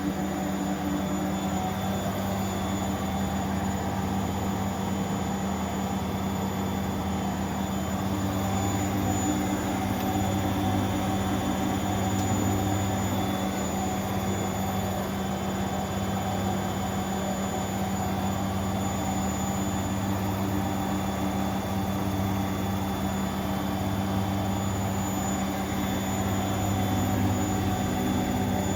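Bosch washing machine drum on a spin cycle, a steady motor hum with a low drone that swells and fades every couple of seconds; after the repair it is spinning properly.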